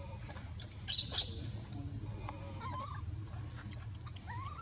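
Newborn macaque infant squealing: a burst of shrill high squeaks about a second in, then short rising cries, the distress calls of a baby being dragged about by an adult.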